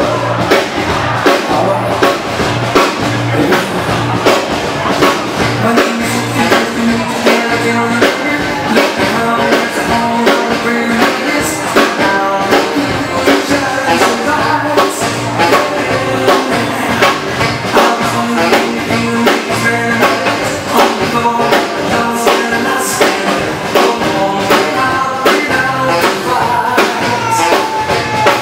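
Live Swedish dance band playing a bugg tune, with a steady drum beat and a singer.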